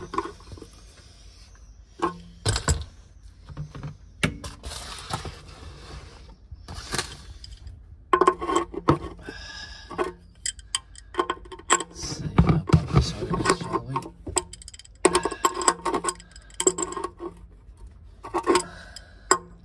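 Metal clinks, knocks and scrapes of an adjustable spanner being fitted to and worked on the sump plug of a Triumph Stag's oil pan, in irregular sharp clicks throughout.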